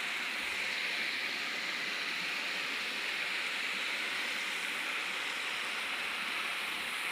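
River water rushing steadily as it runs down its course.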